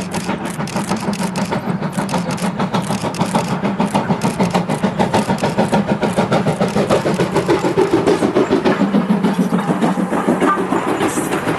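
Moka Railway steam train working past, its exhaust beating in a rapid, even rhythm over a steady hum, growing louder to its loudest about eight seconds in.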